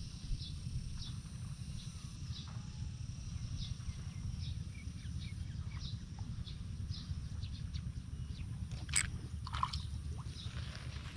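Outdoor ambience: a steady low rumble with faint high chirps repeating roughly twice a second, and one sharp click about nine seconds in.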